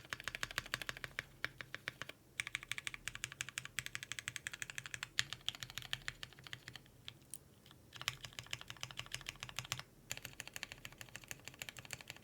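Fast typing on a CannonKeys Bakeneko60 mechanical keyboard with lubed, filmed H1 switches, an FR4 plate and GMK keycaps. The keystrokes come in rapid runs, broken by short pauses about two seconds in, around seven to eight seconds and near ten seconds.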